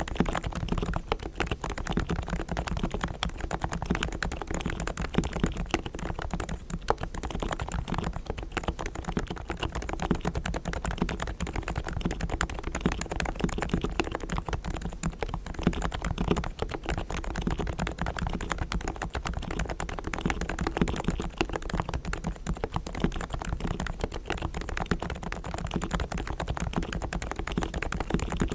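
Rapid, continuous typing on a Realforce R3 tenkeyless Topre electrostatic-capacitive keyboard with 45 g silent switches. Its springs and sliders are fully lubricated, its stabilisers are tuned and its case is dampened with foam. Keystrokes follow one another densely, without pauses.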